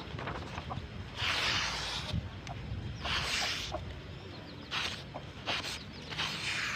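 Slow rasping strokes, four of them about a second and a half apart, with small clicks in between, like hand work with an abrasive or file on metal.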